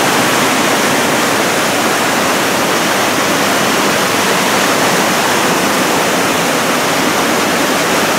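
Whitewater of a river pouring over rocky falls and rapids, a steady loud rush of water.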